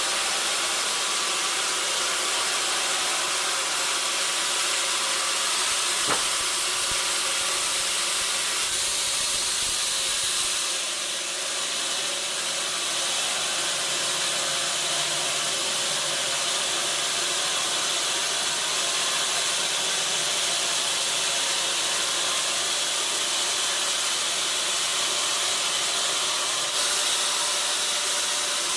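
Steady hissing noise of sawmill machinery running, with a single sharp click about six seconds in.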